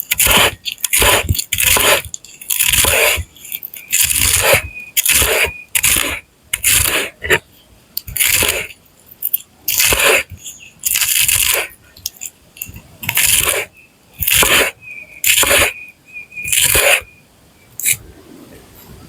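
A series of rough scraping strokes, roughly one a second, some ending in a brief squeak, with a quieter pause near the end.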